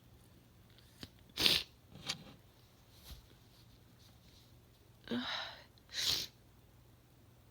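A woman sneezing twice: a short, sharp sneeze about a second and a half in, then a breathy, voiced intake of breath as a build-up and a second sneeze near the end.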